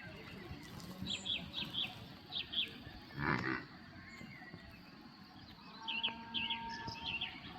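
Birds chirping in two short runs of quick high notes, over a steady background hiss of outdoor ambience. A brief louder sound about three seconds in is the loudest moment.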